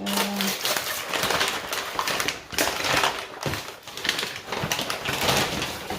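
Crinkly wrapping being handled as bowls are unwrapped: a rapid, continuous crackle of rustling and crumpling.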